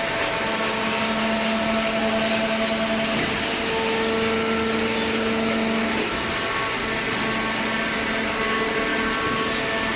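Horizontal hydraulic waste paper baler running: a steady machine drone of the hydraulic power unit with a held whine that comes up about half a second in and drops away about six seconds in.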